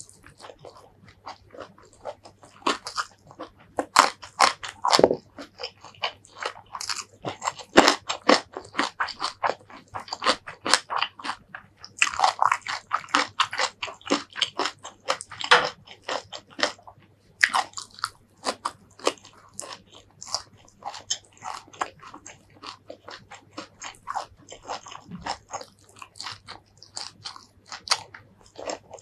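Close-up mouth sounds of eating: crisp, irregular crunching and chewing of raw vegetables and fried fish with rice, without pause.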